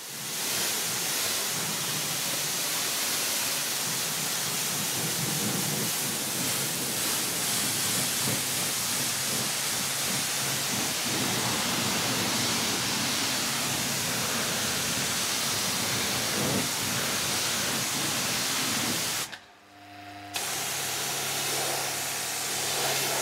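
Kranzle K7 pressure washer lance spraying a steady jet of water, hissing as it rinses snow foam off a car's bodywork. The spray breaks off briefly about nineteen seconds in, then resumes with a low steady hum underneath.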